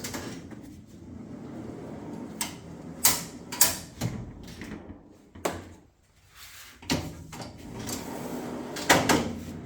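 Kings 90L fridge slide rolling out and back on its runners, a steady rumble broken by several sharp knocks and clunks, the loudest near the end.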